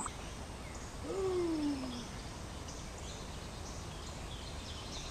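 A single hoot-like call, about a second long, sliding down in pitch, over faint outdoor background.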